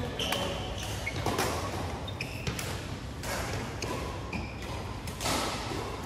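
Badminton rally: sharp racket hits on the shuttlecock, several over the few seconds, mixed with short high squeaks of shoes on the court floor.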